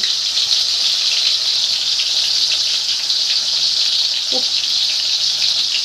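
Masala-coated chicken drumstick deep-frying in hot oil in a kadai: a steady, loud sizzle with fine crackles running through it.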